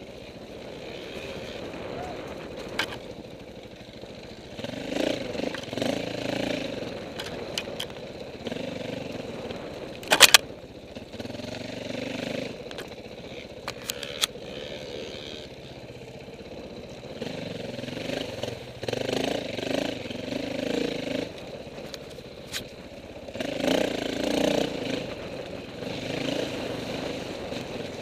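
Dirt bike engine running at low speed, its throttle opened and closed in repeated surges of a second or two. A few sharp knocks sound over it, the loudest about ten seconds in.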